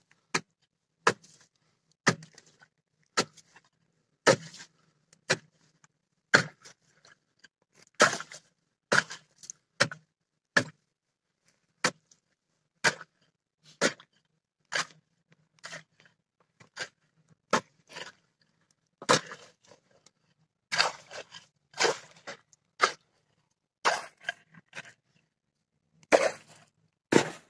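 An ice chisel struck repeatedly into river ice, chopping it away at the edge of a hole: sharp separate blows, about one a second with a few short pauses.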